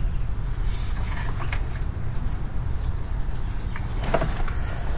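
Light clicks and rustles of wiring being handled and pin terminals with rubber grommets being pushed into a coil-pack harness connector, with a small cluster of clicks about four seconds in, over a steady low rumble.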